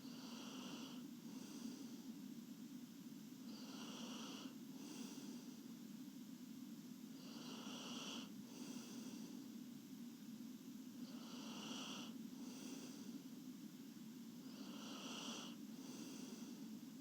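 A sleeping girl's soft snoring: five breaths about four seconds apart, each in two parts, over a steady low hum.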